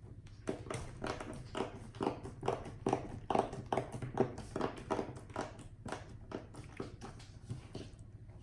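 Slime being pressed and worked by hand, giving a quick series of small clicks and pops, about three a second.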